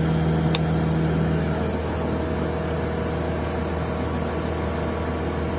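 Caterpillar 120K motor grader's diesel engine idling steadily, heard from the cab. A single short click about half a second in, and a low steady tone that fades out about a second and a half in.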